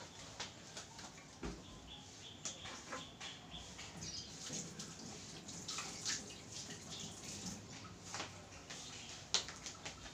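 Faint, irregular clicks and light knocks over a low hiss, with a sharper knock near the end.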